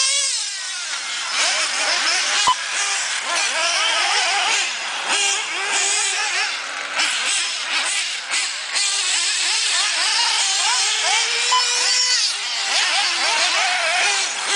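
Several 1/8-scale nitro RC buggies racing, their small engines buzzing at a high pitch and revving up and down, with many engines overlapping.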